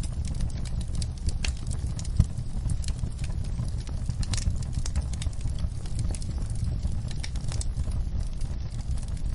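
Wood fire burning in a fireplace: a steady low rumble of flames with frequent small crackles and pops from the burning logs, and one sharper pop about two seconds in.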